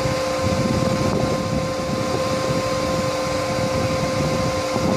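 Steady electrical hum and whine from a running solar pump inverter and control panel, holding two even pitches over a steady rushing noise.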